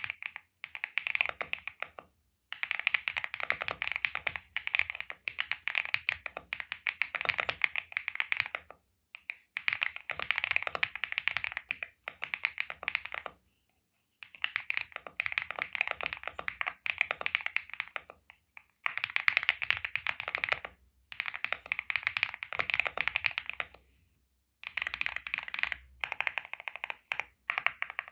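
Typing on an Eweadn X98 gasket-mounted 96% mechanical keyboard with Kailh Spirit Snake switches: rapid keystroke clacks in runs of one to three seconds with short pauses between them.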